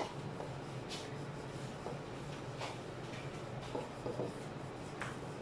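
Banana leaf rustling and crinkling softly as it is handled and passed over a gas burner flame to wilt it and make it pliable for folding. A few louder crinkles stand out over a steady low hum.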